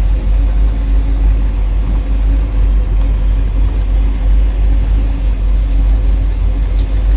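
Fishing boat's engine running steadily: a constant low rumble with a steady hum. A single brief click near the end.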